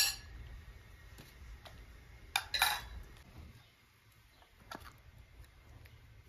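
Metal ladle clinking against porcelain bowls while bean soup is served: a sharp clink at the start, two more about two and a half seconds in, and a fainter one near the end.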